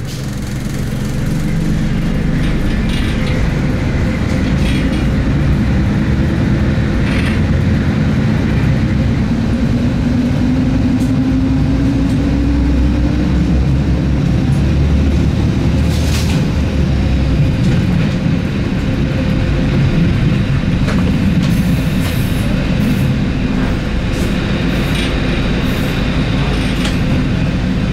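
Fiat ALn668 diesel railcar heard from inside, its diesel engine running as it pulls out, the engine note rising over a few seconds about a third of the way in. Occasional sharp clicks from the wheels over track joints and points.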